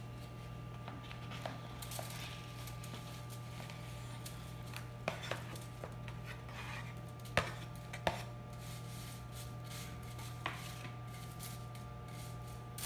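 A table knife scraping chopped banana off a plate into a baking dish and spreading it, with a few sharp taps of the knife against the plate and dish, over a steady low background hum.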